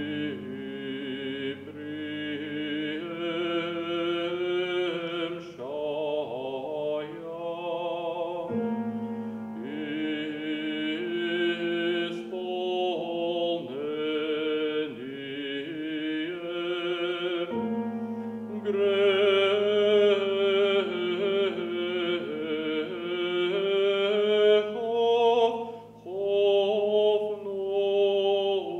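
Baritone singing a classical song with vibrato, accompanied by a grand piano playing held chords underneath. The voice grows louder about two-thirds of the way through.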